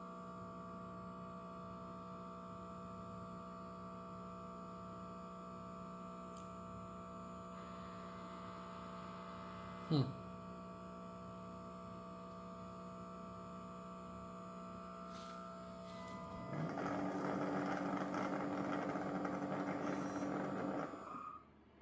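Mova Z60 robot vacuum and docking station running with a steady motor hum. About halfway there is one short, sharp sound. Near the end a louder whirring motor spins up with a rising pitch, runs for about five seconds and cuts off.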